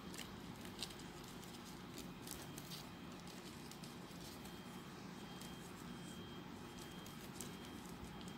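Folded paper units of a 3D origami model being handled and pressed together: faint, irregular small paper ticks and rustles over a steady low background hum.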